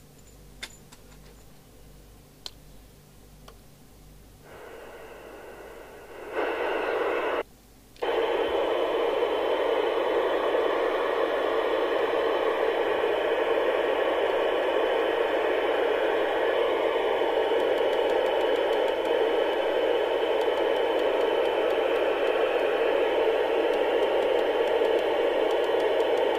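York JCB863 FM CB radio's speaker giving open-squelch receiver hiss from its roof aerial on empty channels, no station coming through. After a few faint clicks the hiss comes in about five seconds in, cuts out for a moment near eight seconds, then runs on steadily.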